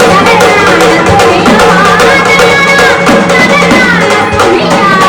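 Gondhal folk music: a sambal drum played in quick, even strokes under an organ holding sustained notes, with a singing voice at times.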